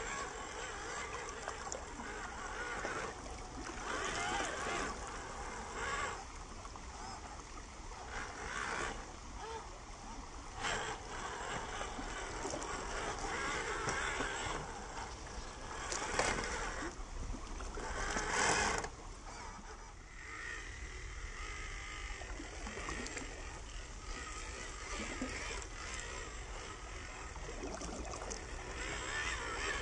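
MN99S 1/12-scale RC Land Rover Defender 90 driving through a shallow, rocky stream: its small electric motor whines while the tyres splash through the water, with several louder splashes, the two loudest past the middle.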